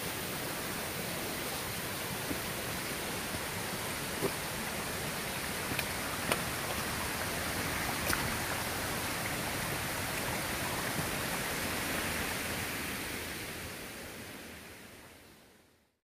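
Steady rush of a rocky mountain stream, with a few faint clicks along the way. The sound fades out over the last few seconds.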